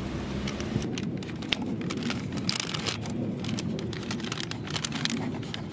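Irregular light clicking and crinkling as an 8 mm hex socket loosens the oil drain bolt on a motorcycle's oil pan, over a steady low background hum.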